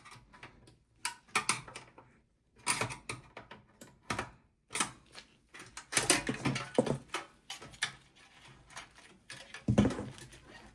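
A flathead screwdriver working on parts inside a desktop PC: irregular clicks, taps and short scrapes of metal on plastic and metal, with a heavier thump near the end.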